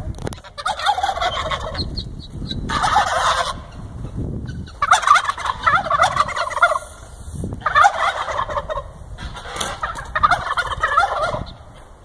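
Domestic turkey tom gobbling again and again: about five rapid, warbling gobbles, each one to two seconds long, a second or so apart.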